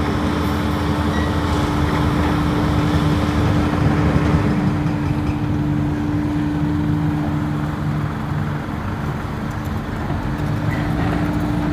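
Heavy engine-driven site machinery running steadily under load, a constant hum over a low pulsing drone.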